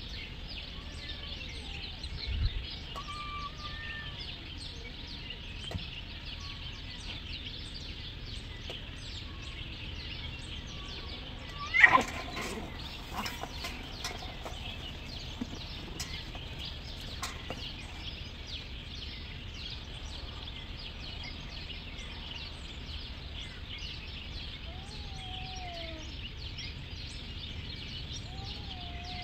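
Street cats in a standoff: a few short, wavering yowls, and a sudden loud screech that falls steeply in pitch about twelve seconds in. A steady high hiss runs underneath, and there is a low thump about two seconds in.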